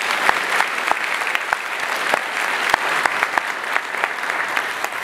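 Audience applauding steadily, a dense patter of many hands with single sharp claps standing out, easing slightly near the end.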